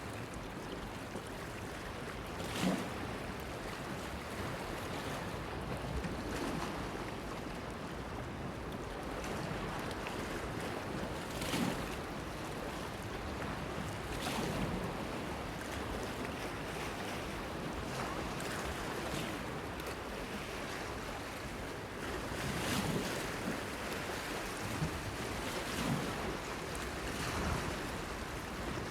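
Small waves washing against a breakwater, with a steady wash of wind and water and a short splash every few seconds at irregular intervals.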